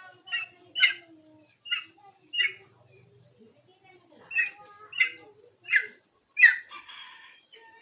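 Junglefowl calling: about eight short, sharp calls, mostly in pairs, over a fainter, lower wavering call in the first few seconds.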